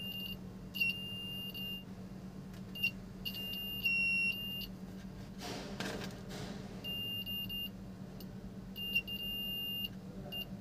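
Piezo buzzer of a homemade continuity tester beeping on one steady high tone each time the probe closes the circuit through a small component's leads: about eight short, uneven beeps as contact makes and breaks, the sign that the part conducts. A low steady hum runs underneath, with a brief rustle about halfway.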